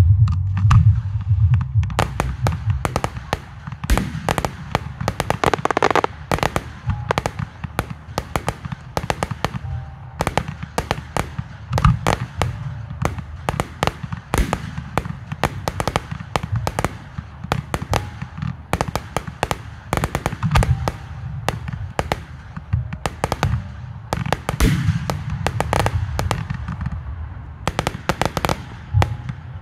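Fireworks display: aerial shells and crackling low-level effects going off in a rapid, near-continuous series of bangs and crackles, with a heavy low rumble in the first few seconds.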